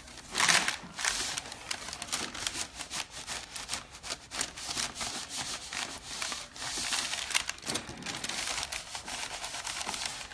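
Parchment paper and cloth rubbing and rustling under the heat tool: an irregular run of short, scratchy scuffs.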